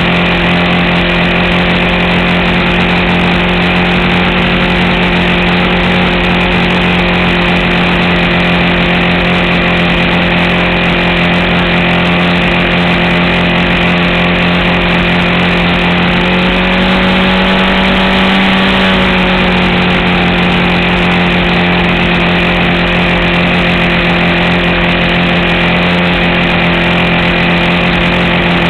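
RC model airplane's motor and propeller running steadily at high power in flight, with a brief rise in pitch a little past the middle before settling back.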